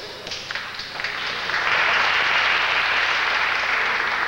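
Wrestling crowd applauding: a few scattered claps at first, then the clapping swells about a second in and begins to ease off near the end.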